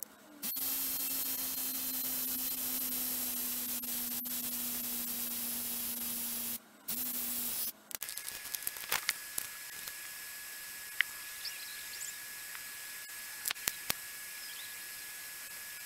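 Spray hiss of paint being sprayed: a long burst of about six seconds, a short break, then a second burst of about a second. After that a quieter steady hiss with a few light clicks.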